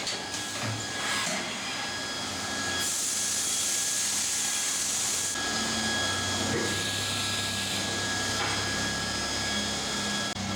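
Haas VF3D CNC vertical machining center running under power: a steady mechanical whine with a low hum. Two long stretches of loud hiss come in, about three seconds in and again about seven seconds in.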